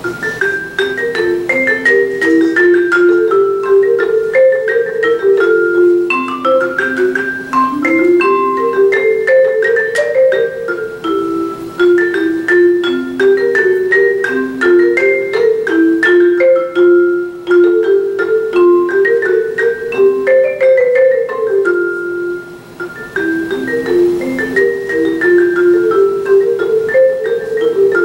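Background music: a quick, repeating melody of short notes on mallet percussion, in the manner of a vibraphone or marimba, played at a steady, loud level.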